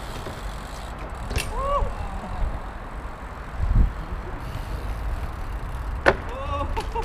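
A mountain bike's tyres land on a wooden 3x2 balance rail with a sharp knock about six seconds in, followed by short squeaks. A duller thump comes a little before halfway, over a steady low rumble.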